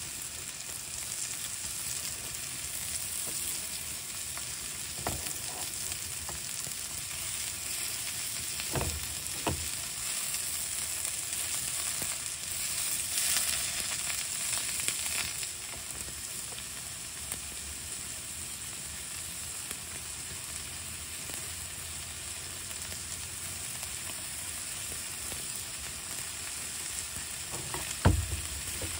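Burger patties and sliced onions frying in butter in a cast iron pan, a steady sizzle that swells for a few seconds around the middle. A few light knocks fall in it, with a sharper clunk near the end.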